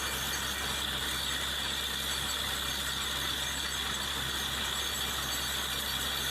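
Borewell drilling rig machinery running steadily: an even mechanical hum with a constant hiss.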